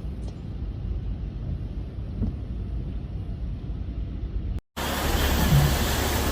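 A steady low rumble. About four and a half seconds in, a cut brings in heavy rain: a loud, even hiss over a low rumble.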